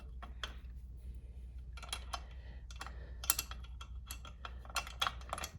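Irregular metal clicks and clinks of hand wrenches working the chain-adjuster nuts on a dirt bike's swingarm, one nut held while the other is loosened, over a steady low hum.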